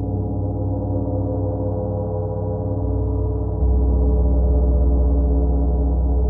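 Large gong sounding a long, sustained drone of many steady overtones; its deep low tone swells louder about three and a half seconds in.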